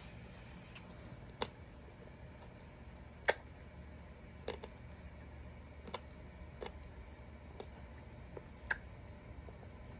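Scattered short wet mouth clicks and smacks, about seven, from a hard Choward's Violets mint being sucked and moved around in the mouth; the loudest comes a little over three seconds in. A low steady hum runs underneath.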